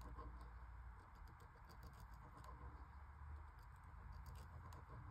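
Faint scratching of a drawing machine's pen as it traces continuous loops across paper, with scattered light ticks, over a low steady hum.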